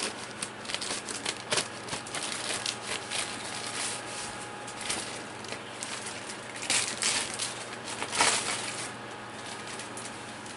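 Plastic packaging crinkling and rustling in bursts as a new laptop screen panel is unwrapped by hand, loudest twice in the second half.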